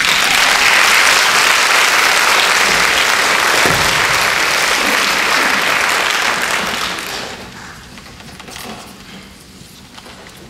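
Theatre audience applauding at the end of a scene, starting all at once and dying away about seven seconds in.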